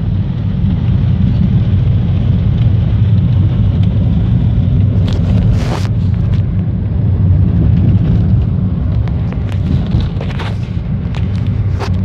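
Steady low rumble of a car's engine and tyres heard from inside the cabin while driving. There are a few knocks and rustles from the phone being handled, about five seconds in and again near the end.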